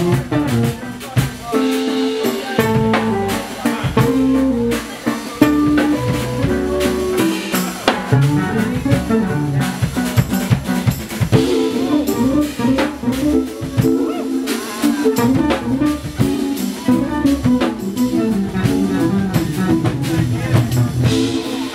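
Live jazz-fusion band playing: drum kit, electric bass and synthesizer keyboard together in a busy groove.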